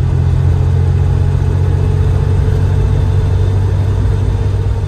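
1988 Porsche 911 Turbo's air-cooled flat-six engine heard from inside the cabin while driving, a steady low drone at an even speed, with road noise.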